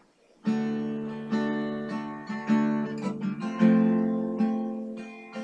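Acoustic guitar strummed in the song's introduction, starting about half a second in, with chords ringing and fading between strokes.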